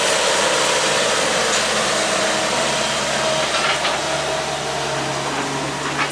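Heavy equipment engine running steadily under a loud, even hiss, with a few short knocks.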